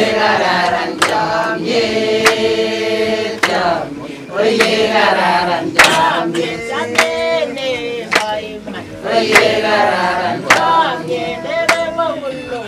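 A group of voices singing a song together in phrases, with a sharp clap about once a second keeping the beat.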